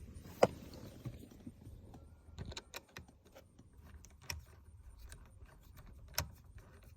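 Scattered light clicks and taps of a T20 Torx bit working the airbag retaining screws loose behind a steering wheel, with one sharper click about half a second in.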